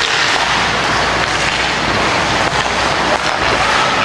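Steady noisy rush of ice rink ambience during a hockey game, with a few faint clicks from sticks and puck.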